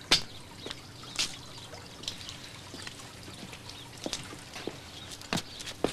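Footsteps of a man hurrying over outdoor ground: a scatter of irregular knocks and scuffs, the sharpest just after the start, over a steady background hiss.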